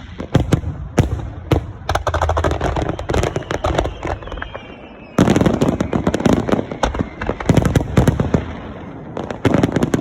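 Fireworks finale: shells bursting in quick succession, with sharp bangs and dense stretches of crackling about two seconds in, again from about five seconds in, and once more near the end.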